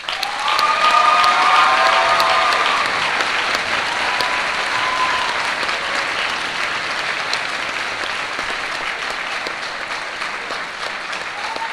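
Audience applauding, breaking out suddenly and loudest in the first two seconds before easing slightly, with a few voices whooping and cheering over it early on.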